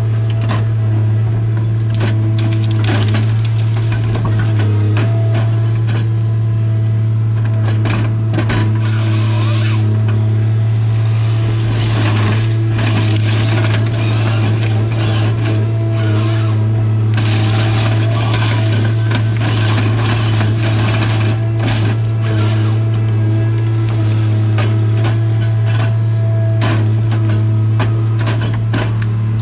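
Tigercat 855C harvester's diesel engine and hydraulics running with a steady low drone, heard from inside the cab. Frequent sharp cracks and snaps of wood and branches come as the LogMax 7000 head saws and processes hardwood stems.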